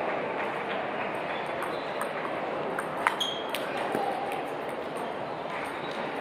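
Steady murmur of a crowded table tennis hall, with scattered sharp clicks of table tennis balls striking paddles and tables. The loudest click comes about three seconds in and has a short high ring after it.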